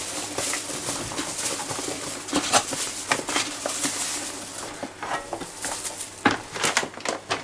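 Quick-dry cement powder pouring from a bag into a bucket of water, a dense hiss with crackling and rustling of the bag. After about four and a half seconds the pouring thins out and a steel trowel scrapes and taps a few times in the bucket.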